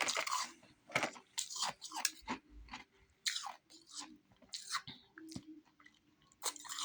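Refrozen powdery ice being bitten and chewed: a loud crunch at the start, then a run of short, irregular crunches.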